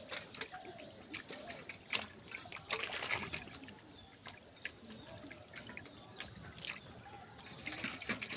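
Water trickling and dribbling, broken by many small, irregular splashes.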